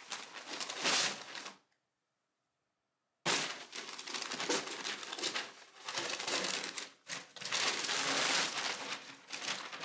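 Brown kraft paper wrapped around a bouquet of fresh flowers and greenery, crinkling and crackling as it is handled and opened. It cuts out completely for about a second and a half shortly after the start, then goes on in uneven bursts of rustling.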